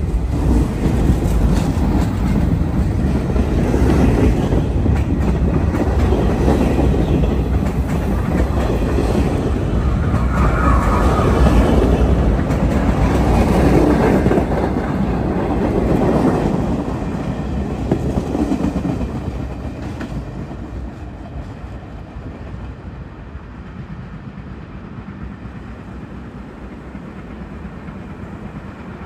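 R68 subway train running past with wheels clacking on the rails, loudest as the last cars go by, then dying away after about twenty seconds to a fainter steady rumble.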